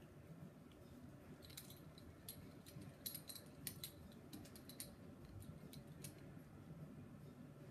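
Faint scattered clicks and light jingles as a miniature schnauzer and a kitten scuffle on a tiled floor, bunched between about a second and a half and five seconds in, over an otherwise near-silent room.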